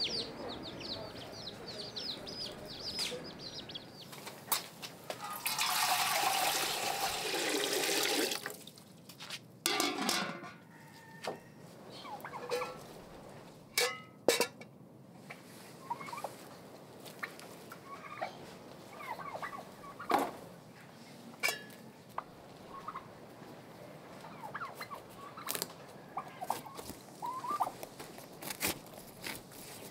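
Farmyard poultry calling, with turkeys gobbling among them. About five seconds in, a rushing noise lasts about three seconds; scattered knocks and clicks follow.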